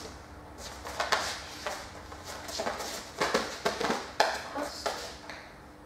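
Irregular clicks and taps from a large dog moving on a hard floor and taking a plastic retrieve block in its mouth.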